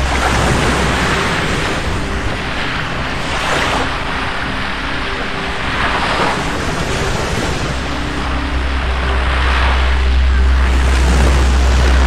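Black Sea surf breaking on a beach, swelling and falling back in surges every few seconds over a steady low rumble.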